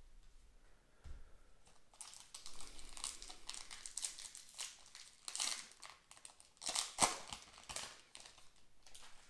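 Magic: The Gathering cards being handled and flipped through: a run of quick rustles and light clicks starting about two seconds in and lasting several seconds, with the sharpest snap near the end.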